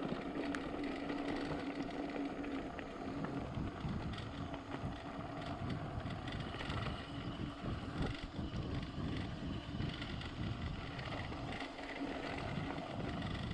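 Wind buffeting the microphone while moving, over a steady rumbling noise, with a low hum that fades in and out.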